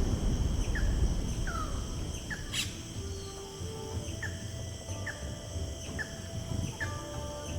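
Nature ambience: short falling bird chirps repeating about once a second over a steady high insect drone, with soft held low tones coming in about three seconds in.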